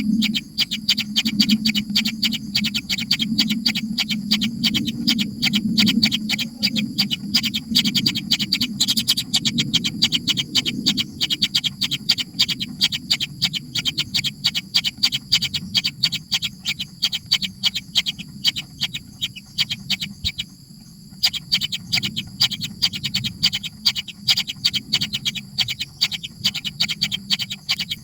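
Nestling birds, likely young kingfishers, begging with rapid, repeated short calls, several a second. The calls break off briefly a little past the two-thirds mark.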